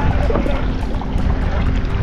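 Wind rumbling on the microphone over choppy sea water lapping against a fishing kayak's hull.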